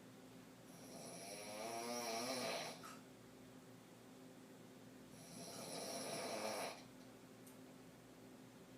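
A woman's deep open-mouth throat snoring in her sleep: two long snores about four seconds apart, each swelling and then cutting off sharply. The first carries a fluttering rattle.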